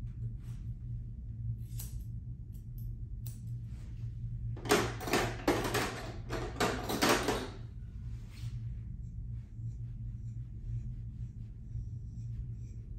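Grooming tools clattering and knocking as they are rummaged through in a grooming trolley. It is a burst of rattles lasting about three seconds near the middle, over a steady low hum.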